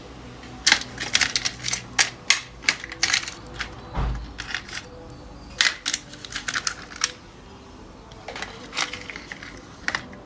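Irregular clicking and clattering of small hard objects being handled, in two bursts, with one dull thump about four seconds in.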